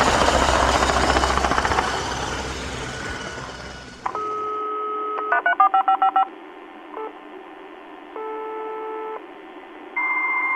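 A noisy sound fades out over the first four seconds. A telephone sound effect follows: a steady dial tone, a quick run of about eight touch-tone keypad beeps, a short blip, a one-second ring tone, and a new tone starting near the end.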